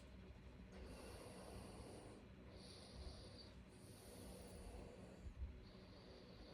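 Faint breathing of a sleeping person, soft and hissy, with no clear snore.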